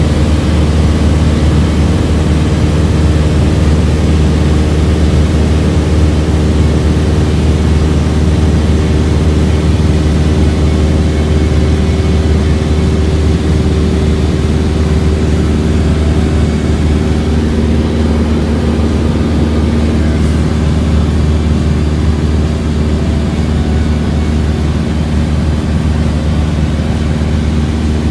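Piston engine and propeller of a single-engine light airplane, heard from inside the cockpit, droning steadily in cruise at about 2300 rpm.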